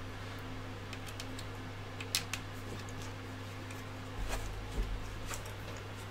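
Light clicks and handling noises from hands working a bundle of wires and picking up a small screwdriver, a few sharp ticks about two seconds in and a cluster of dull knocks and ticks between four and five seconds in, over a steady low hum.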